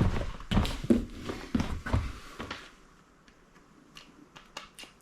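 Footsteps on a hard floor, about three a second, stopping after two and a half seconds, followed by a few faint clicks and taps.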